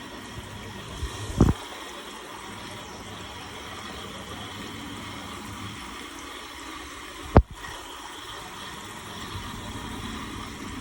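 Shower water spraying steadily, with a dull thump about one and a half seconds in and a sharp knock about seven seconds in, the loudest sound here.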